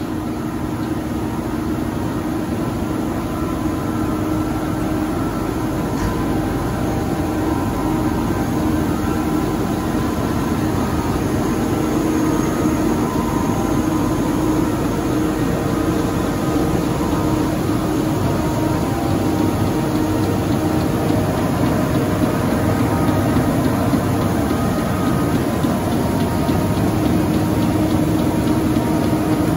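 Muller Martini A52 web printing press running: a steady mechanical hum with a few steady tones in it, growing a little louder over the first several seconds.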